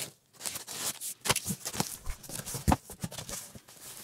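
A cardboard shipping box being opened by hand: packing tape pulled from the seam, the flaps rustled open, and packing foam and a paper sleeve handled, with irregular scrapes and a few sharp knocks.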